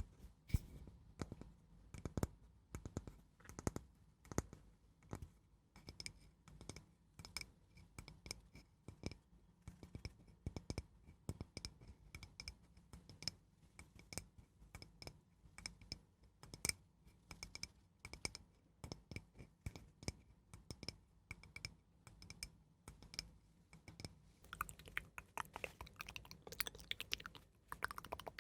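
Close-miked ASMR scratching: slow, irregular clicks and taps a few times a second, turning into a longer run of dense scratching near the end.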